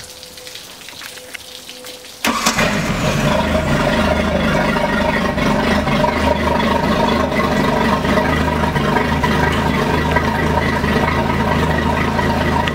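The 1988 Kayot deck boat's Chevy V-6 sterndrive engine starts about two seconds in, catching at once without a long crank, then idles steadily. Before it starts there is only a faint steady tone.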